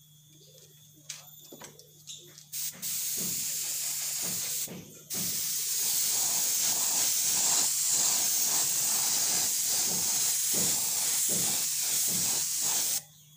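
Epoxy primer spraying in a steady hiss: a burst of about two seconds, a short pause, then one long spray of about eight seconds that cuts off sharply near the end.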